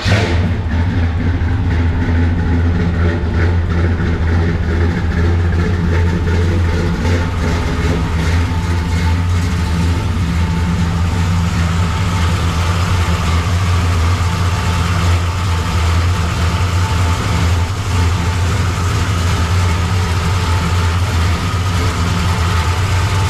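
An engine idling loudly and steadily with a low, even rumble; it sounds damn good.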